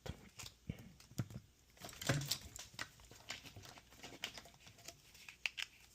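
Scattered light clicks and taps of small tools and parts being handled on a workbench, in preparation for desoldering components from a circuit board.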